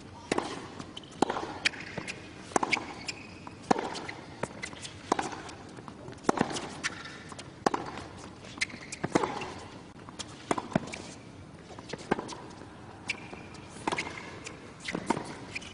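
Tennis rally: a ball is struck back and forth with rackets, making a sharp hit about every one to one and a half seconds, about a dozen in all, with softer bounces between the hits.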